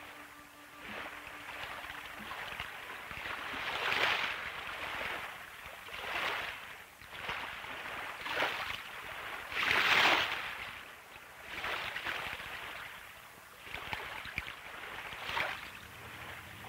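Small waves washing over rocks at the water's edge: a rushing splash that swells and ebbs every second or two, the strongest wash about ten seconds in.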